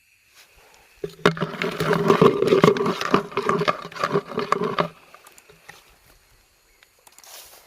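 A rough, harsh animal call lasting about four seconds, starting about a second in and stopping abruptly, followed by faint scattered rustling.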